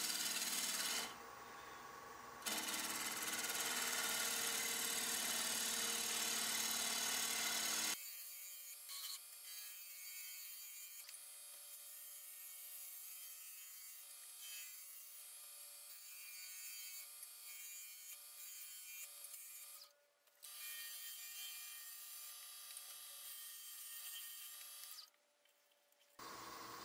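Bowl gouge cutting a spinning mahogany blank on a wood lathe: a steady shaving noise over the machine's running sound. About eight seconds in it drops to a much quieter, thinner hiss, broken by two short silences near the end.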